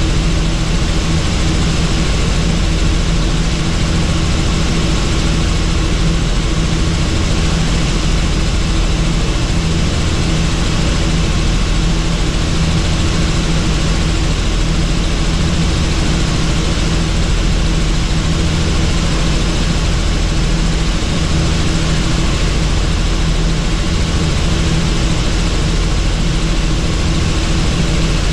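Helicopter engine and rotor running steadily: a loud, even drone with a constant low hum, unchanging throughout.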